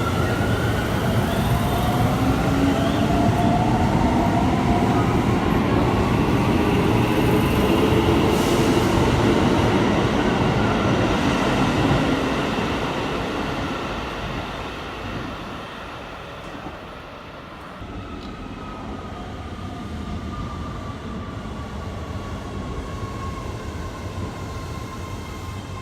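Electric commuter train running through the station, its motors giving several gliding whines over a rumble of wheels on rail. It is loud for about the first twelve seconds, then fades. A fainter rumble with a slowly falling whine follows.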